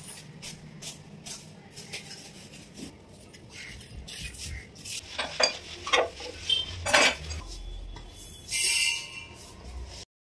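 Kitchen cleaning sounds: scrubbing and clinking as a gas stove and kitchenware are wiped and handled. A few sharp knocks come in the middle, and a short rush of hiss comes near the end.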